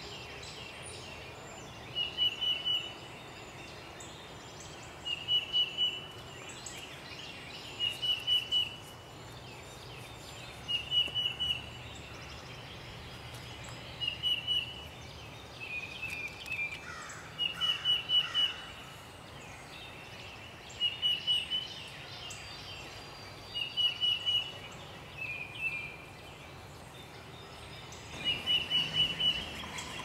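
Eastern phoebe singing its short, burry song phrase over and over, about once every three seconds, with a couple of lower, differently shaped phrases mixed in. A faint steady background noise runs underneath.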